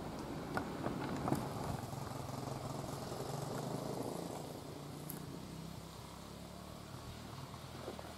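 A distant vehicle's low engine hum that fades away from about halfway through, with a few faint ticks in the first second or so.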